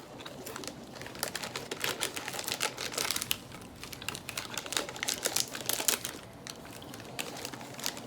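Crunching of a giant cream-filled wafer cookie being bitten and chewed: a dense run of crisp crackles that thins out about six seconds in.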